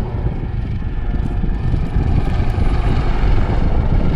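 AgustaWestland AW159 Wildcat helicopter in flight, its twin turboshaft engines and rotors making a steady, heavy low rumble that grows slightly louder in the second half.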